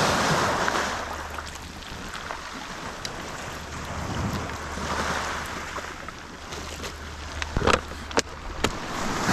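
Sea surf washing onto a rocky shore, swelling and ebbing about every four to five seconds, with a few sharp knocks near the end.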